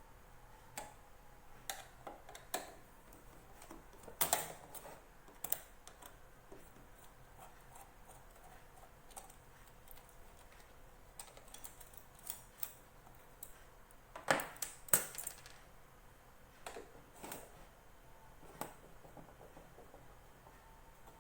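Scattered small clicks and knocks of tools and metal parts as the heating-element section of a plastic bag impulse sealer is taken apart by hand. The loudest knocks come about four seconds in and in a quick cluster around fourteen to fifteen seconds in.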